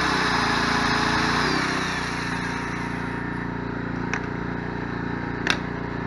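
Corded electric drill whirring on power from a Sportsman 1000 watt inverter generator, then let go about a second and a half in and spinning down. The generator's small engine keeps running steadily after that, set on economy mode, with a few light clicks near the end.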